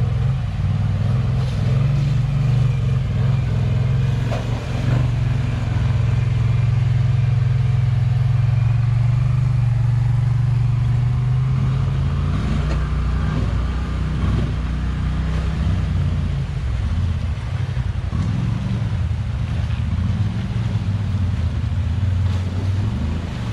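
Off-road vehicle engines running as an ATV and a side-by-side UTV drive through a shallow river. The engine note is steady for the first half, then rises and falls with the throttle from about halfway through.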